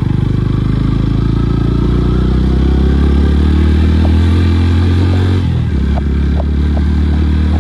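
Motorcycle engine running under way, its note climbing a little and then dropping sharply about five and a half seconds in, with a few light clicks after the drop.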